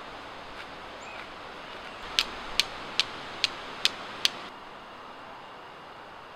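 Six sharp, evenly spaced strikes of a fire-starting striker throwing sparks onto a dry-grass tinder bundle, over a steady outdoor background hiss.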